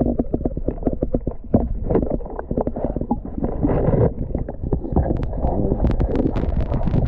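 Rapid, irregular knocks and clicks over a low rumble: water and handling noise close to the camera's microphone in the river.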